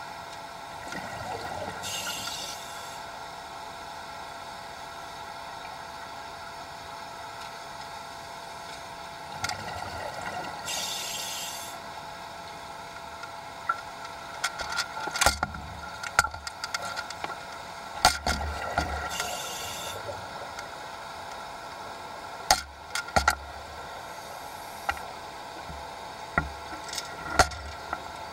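Underwater recording through a camera housing: a steady hum and hiss, with a burst of bubbling hiss from a diver exhaling about every eight to nine seconds. From about halfway, irregular sharp clicks and knocks.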